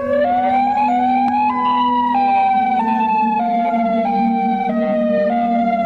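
Federal Signal Modulator electronic warning siren sounding. Its tone climbs in short steps for about a second and a half, then steps slowly back down, over a steady lower hum.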